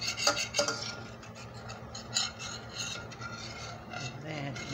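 Metal spoon stirring liquid in a stainless steel pan, scraping the pan's bottom, with a few sharp clinks of spoon on metal.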